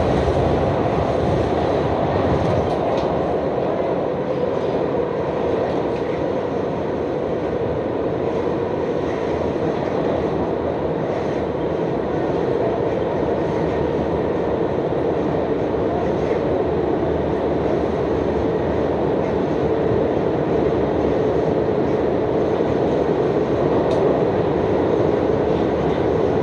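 New York City Subway 3 train running steadily between stations, heard as continuous ride noise from inside the car.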